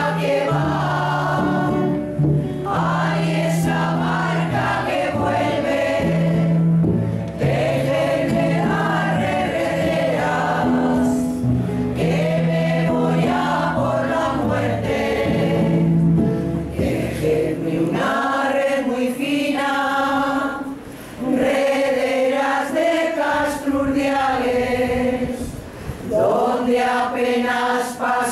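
Women's choir singing together, with low held notes under the voices that stop about two-thirds of the way through; the singing pauses briefly a couple of times before carrying on.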